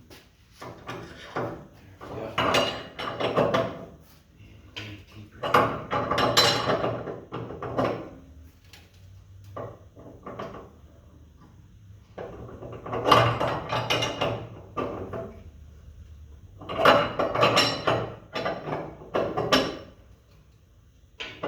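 Metal clanking and scraping from a large wrench working the nut on the threaded shaft of a homemade coil spring compressor, in four bouts of a few seconds each with short pauses between. The spring is still under little tension.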